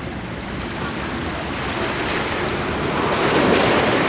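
Small sea waves lapping and washing over a concrete step at the water's edge, one wash swelling louder about three seconds in.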